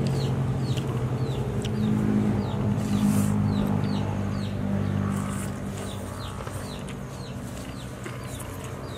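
Chicks peeping over and over, quick falling chirps about twice a second, over a low steady hum.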